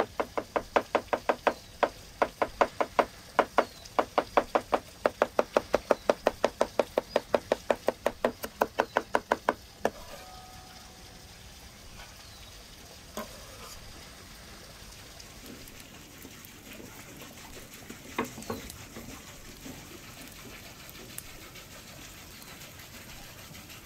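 Rapid chopping of fresh dill with a cleaver on a wooden cutting board, an even run of about four chops a second that stops about ten seconds in. After that only a few faint knocks are heard.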